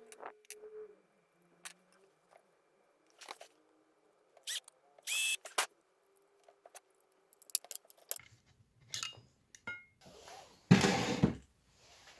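Workshop handling sounds of small parts and tools: scattered clicks, taps and short scrapes, with one louder rasping scrape near the end.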